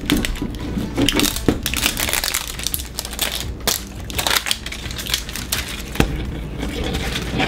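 Plastic wrapping crinkling and crackling as it is peeled in a long strip off an L.O.L. Surprise ball, with irregular crackles throughout.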